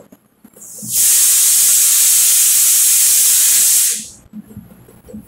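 A loud, steady hiss lasting about three seconds, swelling in about a second in and fading out about four seconds in.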